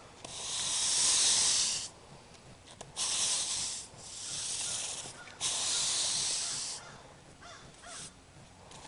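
Push broom bristles swishing across wet concrete, spreading a thin Portland cement slurry: four long strokes, each a hissing scrape about a second or more long, with short pauses between.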